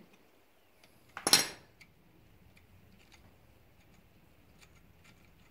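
An adjustable wrench set down on metal with a single sharp clank that rings briefly, about a second in. Afterwards only faint light clicks as a pipe plug is turned by hand into an oil port of the engine block.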